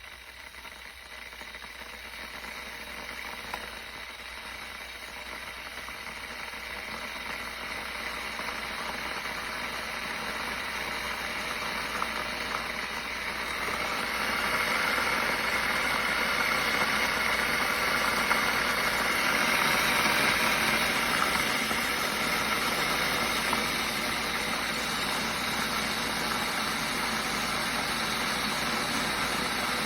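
Hamilton Beach 1-litre glass electric kettle heating water: a rumbling, hissing noise that grows steadily louder over about fourteen seconds, then holds steady as the water comes to a rolling boil.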